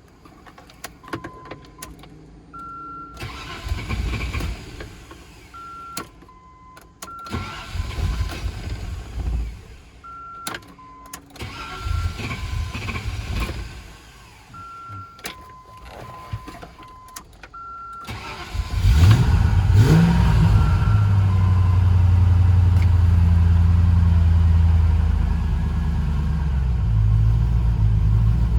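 Hot Range Rover Classic engine cranked over several times without catching, with short electronic beeps between the tries; about 18 seconds in it catches, revs briefly and settles to a steady idle. The repeated failure to fire is the hot no-start fault, the engine only starting when slight throttle is given.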